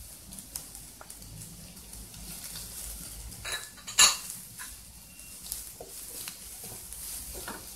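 Wooden spatula stirring and scraping chopped capsicum and onions around a non-stick kadhai, with scattered light knocks against the pan and one sharp clack about four seconds in.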